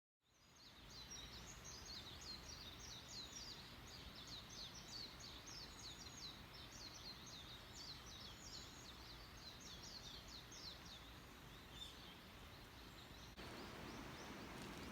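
Faint bird song: a rapid run of high, quick downward-sliding chirps that stops about eleven seconds in, over a steady low outdoor background hum.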